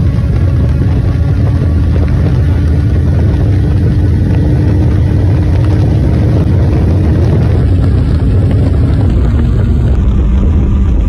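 Motorcycle running flat out near its top speed, about 180 to 200 km/h. A steady engine drone is mostly buried under heavy wind rush on the microphone.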